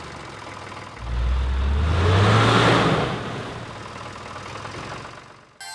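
Sound effect of an engine starting up about a second in, its low rumble rising in pitch, with a rush of air from the cooling fan that swells and then fades away.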